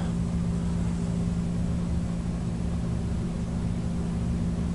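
Steady electrical hum, a constant mid-low drone with no change, from the bench high-voltage power supply feeding the meter under test.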